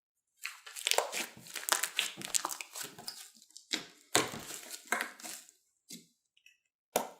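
Slime being squeezed and stretched by hand, making a dense run of crackling and popping that breaks into a few short separate pops near the end.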